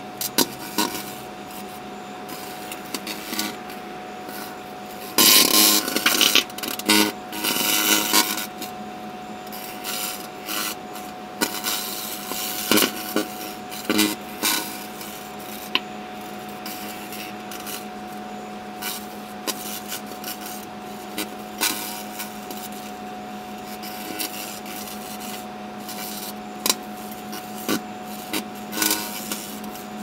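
Microwave oven running with a steady hum while the microwaved light bulb's remains spark and burn inside, crackling and popping irregularly. The crackling is densest about five to eight seconds in.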